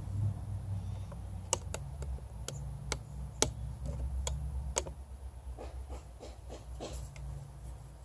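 Irregular sharp taps or clicks, about eight in three seconds, then a few fainter ones, over a low rumble.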